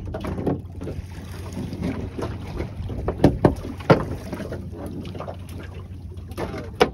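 Steady low rumble and wind on a small fishing boat, broken by a few sharp knocks about three seconds in and again near the end, while a fisherman hauls in a handline hand over hand.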